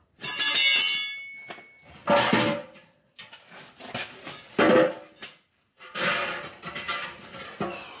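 Steel clanging as a rusty wheel rim is worked out of a large backhoe tyre: a sharp metal strike that rings for about a second and a half, then several heavy clunks and scrapes as the steel rim comes free and is set down on concrete.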